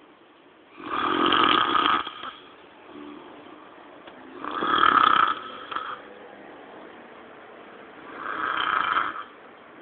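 A man snoring heavily in his sleep: three long snores, each over a second long, about three and a half seconds apart.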